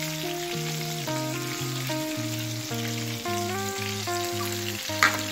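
Whole fish frying in hot oil in a pan, sizzling steadily, with a sharp metallic clink about five seconds in as a fork knocks the pan. A melody of music plays alongside.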